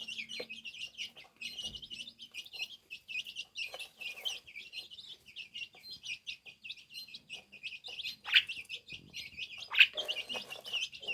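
A small bird twittering continuously in rapid high chirps, with two louder, downward-sweeping calls about eight and ten seconds in.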